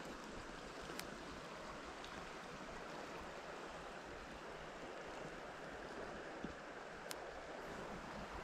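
River water flowing with a steady, even rush, and two faint clicks, about a second in and near the end.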